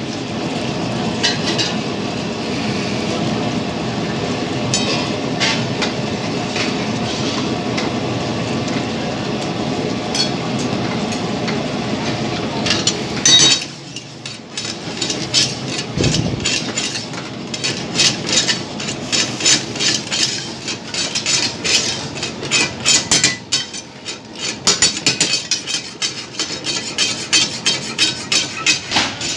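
Curry sizzling hard in a steel karahi wok over a gas flame, a steady dense sizzle that falls away about halfway through. After that a metal ladle stirs and scrapes against the wok with rapid, repeated clanks.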